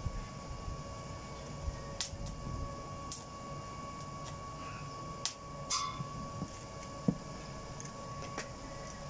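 Arc welding machine humming steadily with no arc struck, with about six light, sharp metallic clicks and taps as the steel grille and electrode holder are handled.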